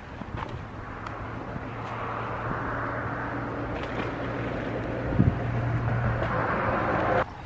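A steady low engine drone with a mid-range rushing noise that grows gradually louder over several seconds, then cuts off abruptly near the end.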